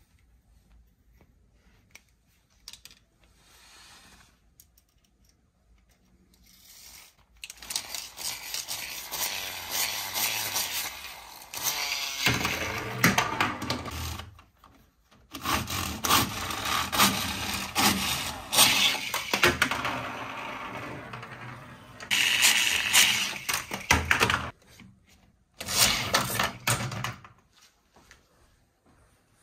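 Toothed plastic ripcord pulled through a Riplash Racers toy car launcher, a rapid rasping ratchet that revs up the toy car's wheels. It comes in several long bursts with short gaps, starting about seven seconds in and stopping near the end.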